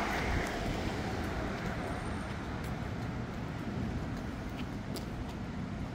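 Street traffic: a car going by fades away over the first second or so, leaving a steady low rumble of road traffic.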